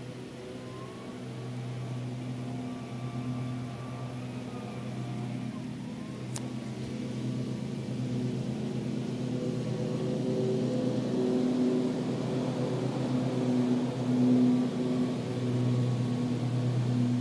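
An engine running steadily with a low hum that grows gradually louder. There is one brief sharp click about six seconds in.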